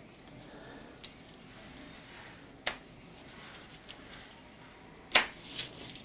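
Hardened-steel cable scissors snipping Cat6 cable: three sharp clicks, about a second, nearly three and about five seconds in, the last the loudest, with a few fainter ticks of handling between.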